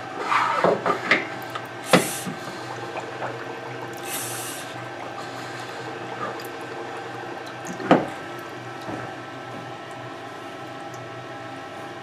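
Air bubbling up through water from a pressurised plastic enclosure held underwater, leaking around its Lumberg connector socket, suspected to be between the box and the socket's metal body. Two sharp knocks, about two seconds in and near eight seconds, and a brief hiss about four seconds in, over a steady hum.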